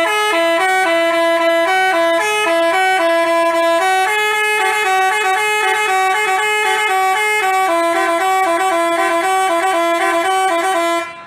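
Basuri telolet musical bus horn playing a quick melody of stepped, reedy notes, stopping abruptly near the end.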